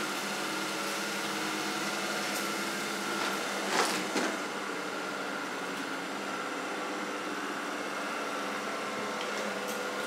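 Shark IQ robot vacuum running across carpet: a steady motor whine and hum of its suction fan and brushes, with a brief clatter about four seconds in.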